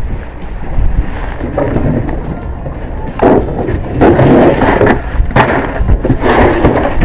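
Wind and clothing rubbing against a chest-worn camera, over a constant low rumble. Several loud rushing bursts of handling noise come between about three and six and a half seconds in.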